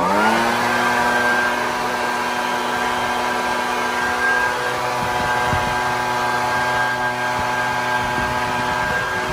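A motor spins up quickly to speed and then runs at a steady pitch with a constant hum.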